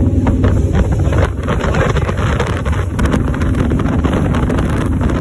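Speedboat running underway: a steady low engine drone under rushing water, with heavy wind buffeting the microphone.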